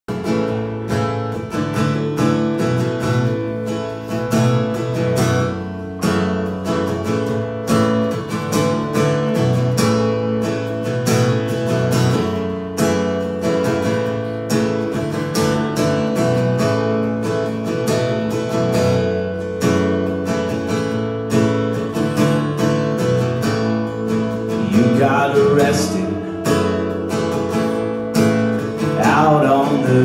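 Strummed acoustic guitar with an electric guitar playing along, live: the instrumental opening of a song. A man's singing voice comes in near the end.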